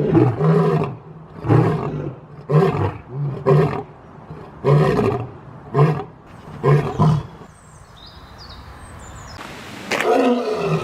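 Lion roaring: a string of short, deep grunts about a second apart, the grunting tail of a roaring bout, which stops about seven seconds in. Faint bird chirps follow, and then another loud roar begins near the end.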